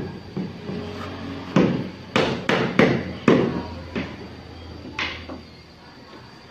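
Mallet, with what looks like a rubber head, tapping a large ceramic floor tile down to set it flat and level: a series of sharp, irregular knocks, several in quick succession in the middle.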